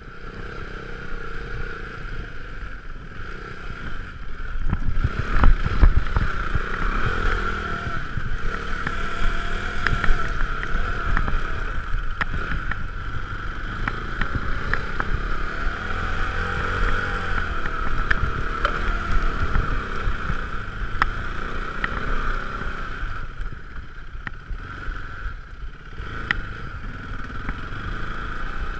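Motorcycle engine running as it is ridden slowly over rough sand and dirt, the revs rising and falling with the throttle. Wind rushes over the helmet-mounted camera, and sharp knocks come from the bike jolting over the bumps.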